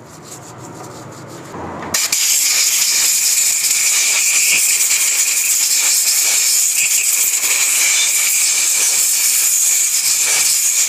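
Compressed-air blow gun hissing steadily as it dries a Honda CD70's magneto stator coils, blowing off the petrol used to wash the oil from them. The blast starts suddenly about two seconds in; softer clicking and handling noises come before it.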